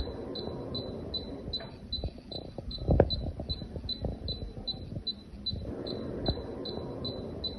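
Indoor unit of a Gree room air conditioner beeping continuously, short high beeps at about three a second, as it fails to start: a fault alarm. Under it is a rumbling handling noise with a sharp knock about three seconds in.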